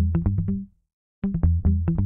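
Background synthesizer music: short phrases of quick notes over a heavy bass, each about a second long. A brief silence falls just under a second in, and a new phrase starts right after it.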